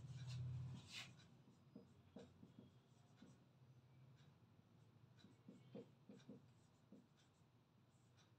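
Faint short strokes of a marker pen writing on a whiteboard, a word being written stroke by stroke. A soft low sound stands out in the first second.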